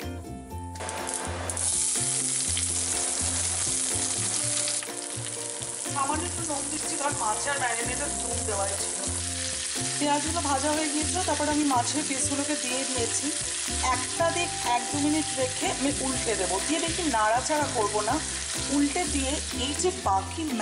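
Hot mustard oil sizzling as mustard seeds and curry leaves go in for tempering. The sizzle breaks out suddenly about a second in, is loudest for the next few seconds, then carries on a little lower as the pan keeps frying.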